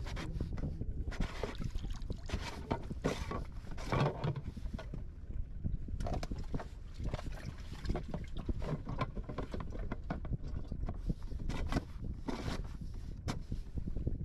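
Wind rumbling on the microphone and water lapping against a fishing kayak's hull, with many short knocks, rustles and small splashes from hands working in the kayak's cockpit.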